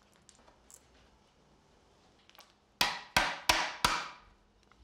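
A wood chisel driven with a hammer into poplar, cleaning up a scribe cut. Four sharp blows about a third of a second apart come near the end, after a stretch of faint taps.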